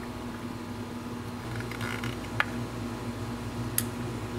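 Steady hum of a room air conditioner running, with a short rustle and two sharp clicks as plastic model parts are handled and pressed together.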